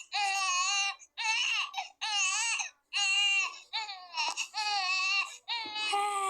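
Baby crying in a run of about six short, high-pitched wails, each broken off by a quick catch of breath, as in crying with hiccups.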